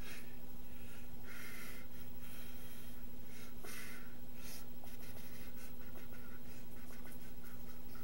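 Steady low electrical hum and hiss, with a few soft brushing sounds from the signer's movement, the clearest about a second and a half in and just under four seconds in.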